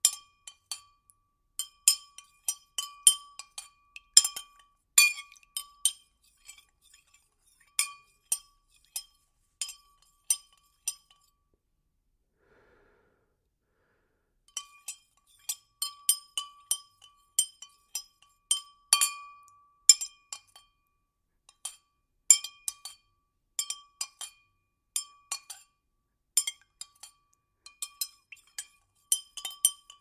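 Liquid being stirred in a glass, the stirrer clinking against the glass wall with a short ringing tone, irregularly, a few clinks a second. The clinking stops for about three seconds a little before halfway, then carries on.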